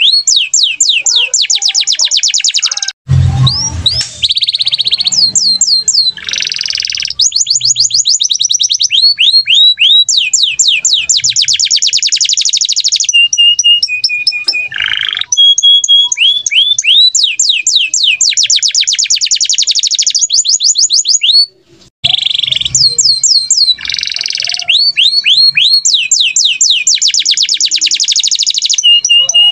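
Domestic canary singing a long, loud song of fast trills: runs of rapidly repeated, downward-sweeping whistled notes, changing between trill types with short pauses. The song breaks off for a moment twice, about three seconds in and about two-thirds of the way through.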